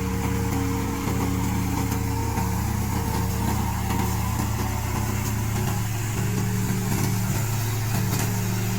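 Small gasoline engine of a remote-control crawler lawn mower running steadily.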